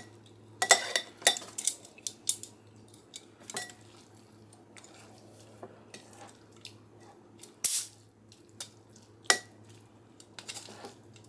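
Metal tongs clinking and scraping against a glass mixing bowl while tossing moist shredded chicken, in scattered taps with a quieter stretch in the middle; the loudest clink comes about two-thirds of the way through.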